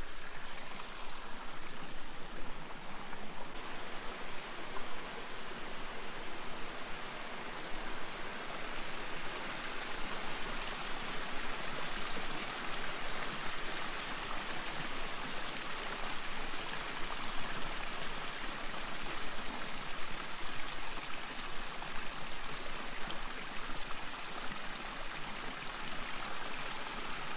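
Shallow rocky forest creek running over stones and into pools: a steady, unchanging sound of flowing water.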